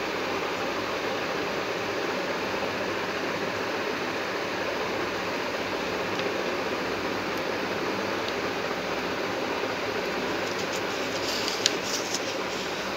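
Steady, even rushing noise with no speech, with a few soft clicks and one sharp click about eleven and a half seconds in.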